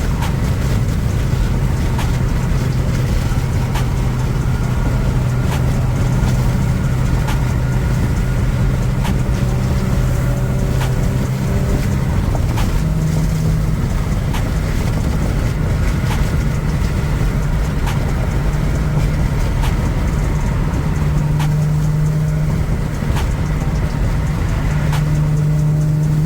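Car driving at highway speed: a steady engine drone with tyre and road noise, the drone stepping up in pitch about halfway through and again near the end.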